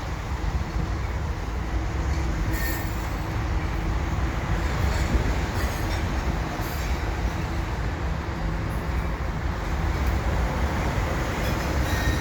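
Freight train rolling past without stopping: a steady rumble of steel wheels and cars on the rails.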